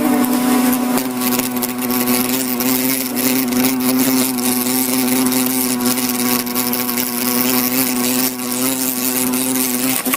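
A flying insect's wings buzzing, one steady drone whose pitch wavers only slightly, kept up without a break.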